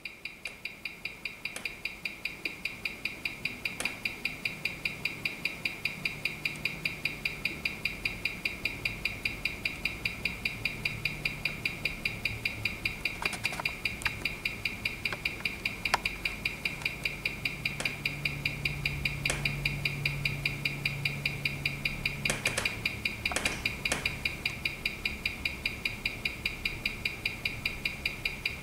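Mechanical watch movement ticking, picked up by a timegrapher's microphone: a rapid, perfectly even run of ticks at 18,000 beats an hour. The even beat goes with a well-regulated watch, running about 4 s a day slow at close to 300° amplitude. A few louder separate clicks stand out now and then.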